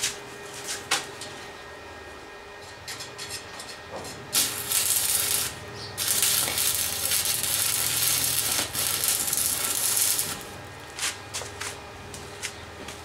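Stick welder's arc crackling and hissing as chain-link wire is welded to an angle-iron frame. There are a few light ticks at first, then a short burst of arc about four seconds in, and a steadier run of about four seconds.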